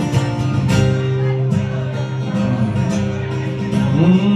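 Solo acoustic guitar playing a folk song, strummed in a steady rhythm.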